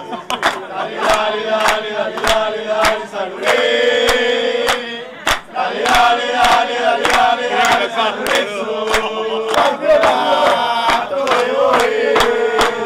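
A group of football supporters chanting a terrace song in unison, with a steady beat of hand claps about two a second.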